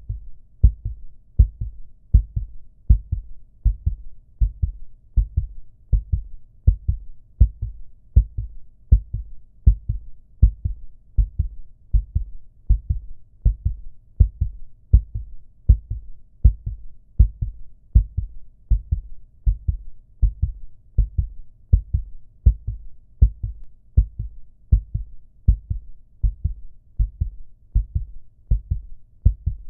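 Heartbeat: a steady lub-dub of low, dull thuds in pairs, about 80 beats a minute.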